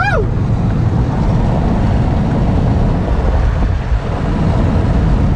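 Steady road and engine noise heard from inside a moving Chevrolet Cobalt's cabin, a continuous low rumble.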